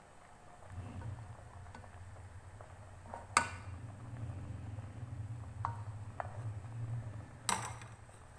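A metal ladle clinking against a steel cooking pot while skimming foam off boiling dal: a few sharp clinks, two of them louder than the rest, over a low steady rumble.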